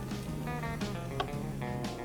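Background instrumental music with a plucked guitar-like melody, with a few faint clicks.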